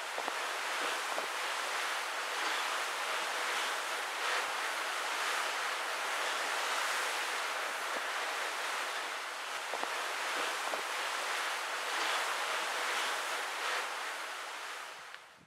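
Open-sea ambience: a steady rush of wind over choppy water, fading out near the end.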